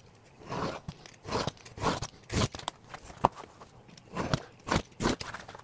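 Utility knife scoring a thin flexible plastic cutting-board sheet along a metal ruler: about eight short scraping strokes, roughly two a second.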